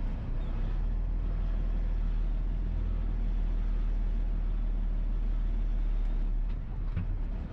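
Dump truck's diesel engine running with a steady low rumble as the truck and pup trailer back up slowly. The rumble eases a little near the end, and a short knock comes just before the end.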